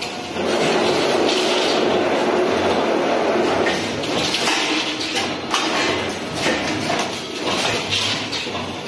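Automatic servo wire bending machine running, feeding and bending steel wire. A steady mechanical rush of wire feeding lasts about four seconds, then gives way to a series of shorter bursts and sharp clicks as the bends are made.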